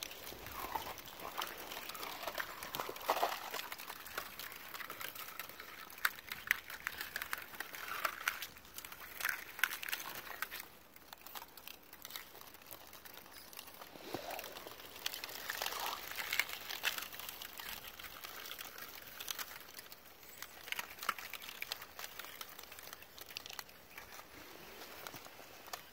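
Thin sheets of ice crackling and clinking as they drift in and grind against the shore rocks: a dense, irregular run of small clicks and scrapes.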